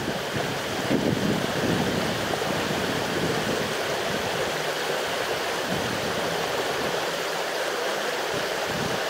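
Steady, even rushing noise with no breaks, a little fuller in the low end for the first couple of seconds.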